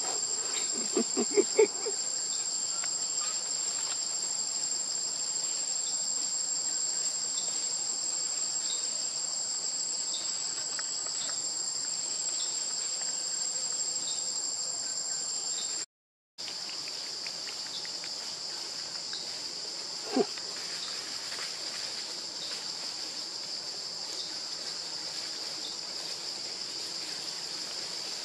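Steady high-pitched drone of an insect chorus, unbroken except for a brief dropout just past the middle. A few short, louder sounds break in about a second in.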